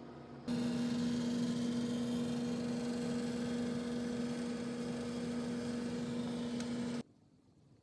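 Steady electrical hum of a mains-powered appliance running, a low tone with a fainter one an octave above over a faint hiss. It starts about half a second in and cuts off abruptly about seven seconds in.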